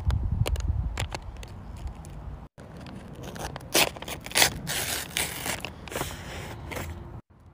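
Paper crinkling and crackling as a handmade paper package is pressed and handled, then torn open with a run of crackly rips in the second half.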